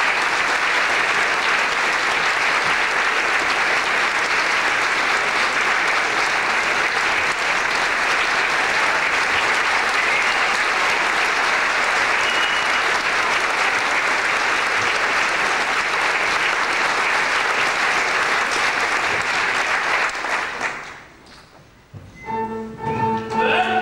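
Audience applauding steadily for about twenty seconds, then dying away. A piano starts playing about two seconds before the end.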